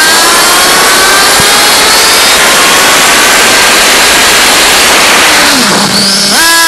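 Car's combustion engine held at high revs, its pitch creeping up as it accelerates, with a rushing noise over it. About a second before the end the revs drop off briefly, then climb sharply again.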